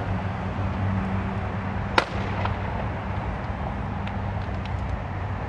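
A sharp bang from the burning car about two seconds in, followed by a fainter pop and a few small crackles, over a steady low engine hum.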